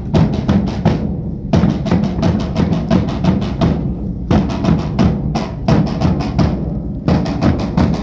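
A Portuguese drum band playing rope-tensioned bass drums (bombos) and a snare drum (caixa) together. They beat fast runs of strokes in phrases, with a short break every few seconds.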